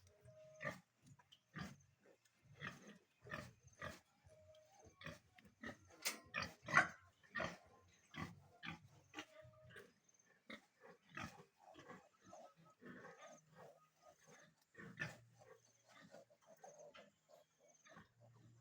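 Pigs grunting: a run of short grunts, one or two a second, the loudest a little past the middle.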